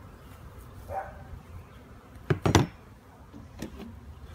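Wooden beehive boxes and frames knocking as they are handled: a short sharp pair of knocks about halfway through, the loudest sound, then two lighter knocks a second later.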